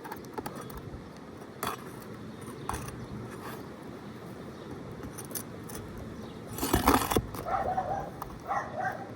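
A steel flat bar prying under asphalt shingles at a stuck roofing nail: scattered light metal clicks and taps, then a louder scrape about seven seconds in and a run of rough grating near the end as the nail is worked loose.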